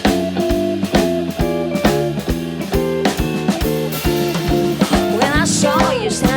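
Blues-rock band playing a song's instrumental intro: guitar chords over bass and drum kit with a steady beat. A gliding vocal line comes in near the end.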